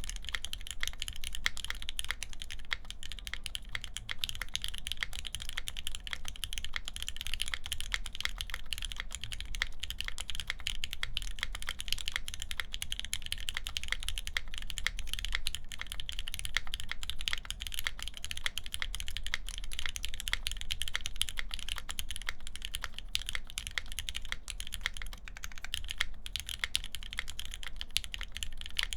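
Continuous fast typing on a mechanical keyboard with lubed linear Gateron Ink switches on a full aluminium plate and GMK keycaps: a dense, even stream of key clacks.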